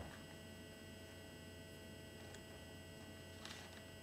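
Near silence: room tone with a steady faint electrical hum, and a brief faint noise about three and a half seconds in.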